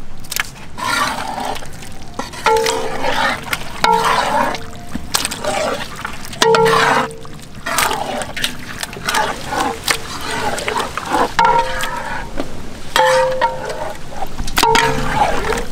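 Marinated stingray pieces dropped by hand into a large pot of thick masala gravy and stirred in with a ladle. Wet splats and repeated knocks against the metal pot.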